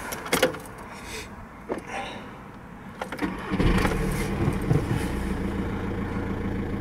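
VW Golf Mk5 engine cranking and starting about three seconds in, catching quickly and settling into a steady idle: a test start after the fuel pump was replaced. A few light clicks come before it.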